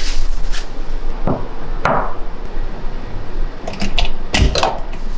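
Two knocks on a hotel room door, then a quick run of latch clicks and a heavy thud near the end as the door is unlatched and opened.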